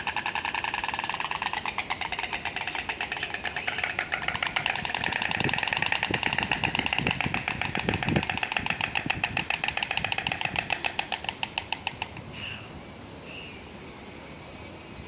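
A bird clapping its beak: a fast, even clatter of about ten clicks a second that stops abruptly about twelve seconds in. Two short, faint high notes follow.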